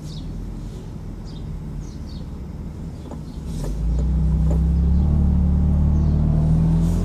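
F80 BMW M3 on the move, its twin-turbo straight-six and the road making a steady low rumble that grows clearly louder about three and a half seconds in.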